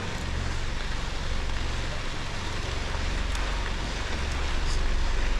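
Steady rushing noise of a bicycle being ridden: wind buffeting the action camera's microphone, with the rolling of the tyres on the trail underneath, heaviest in the low rumble.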